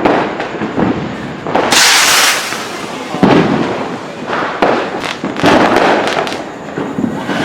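Firecrackers bursting all around in a dense, continuous run of bangs and crackles, with a louder burst about two seconds in.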